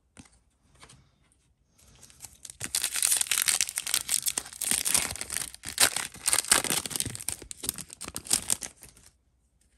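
A plastic trading-card pack wrapper being torn open and crinkled by hand, a dense crackling that starts about two seconds in and stops just before the end.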